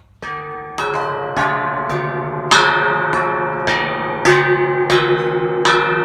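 Steel dog tie-out stakes forming a scrap-metal sculpture's hair, tapped on top with a board and ringing just like church bells. About two strikes a second, each a clang whose several tones ring on and overlap with the next.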